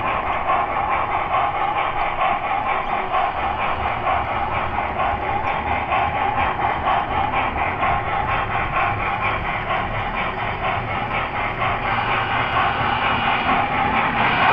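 Model train rolling on track: a steady rattling clatter of metal wheels on rails with fast, fine clicking throughout.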